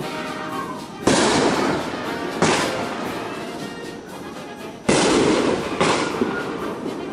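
Aerial fireworks bursting overhead: four sharp bangs, about a second in, at about two and a half seconds, near five seconds and just before six, each followed by a long fading tail.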